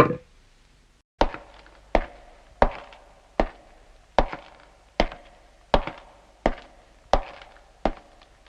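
Anime sound effect: a steady series of sharp, hard knocks, about one every 0.7 seconds, each with a short ring, starting about a second in. The tail of a louder effect fades out at the very start.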